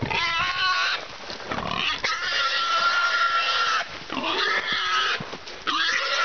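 Wild boar squealing under attack from a hunting dog: several long, high, drawn-out squeals with short breaks between them.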